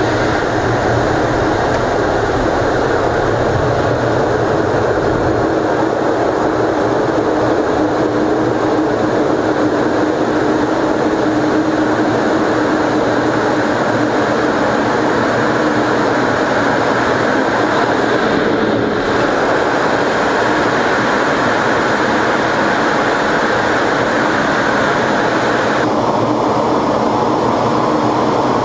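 F-15 Eagle's jet engines and rushing air heard from inside the cockpit: a loud, steady roar with a faint steady hum in it. Near the end the higher part of the roar drops away.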